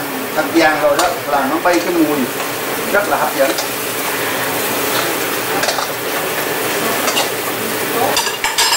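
King crab legs sizzling in a frying pan while being stirred and turned with a metal spatula and fork, which clack and scrape against the pan now and then.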